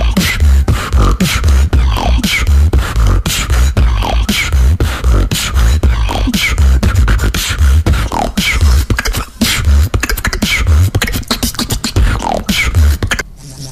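A female beatboxer performs a steady beat. Deep kick-drum bass sounds come a little under twice a second, mixed with sharp snare and hi-hat clicks and short falling vocal glides. The beat stops just before the end.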